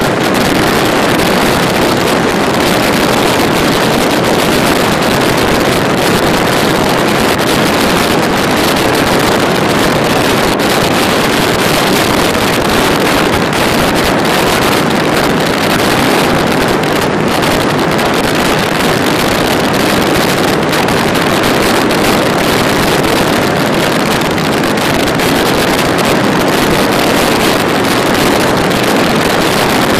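Loud, steady wind rush over the microphone of a motorcycle riding at motorway speed, with the bike's running noise blended into it.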